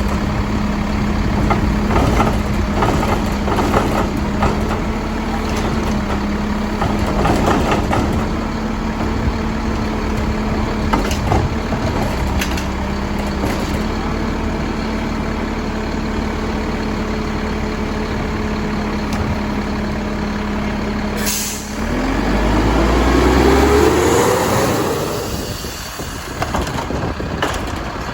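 Mack LEU garbage truck with a Labrie Helping Hand side loader, its diesel engine running with a steady drone while knocks and clatter come from the loading. About 21 seconds in, a sharp air-brake hiss, then the engine revs up with a rising pitch as the truck pulls away.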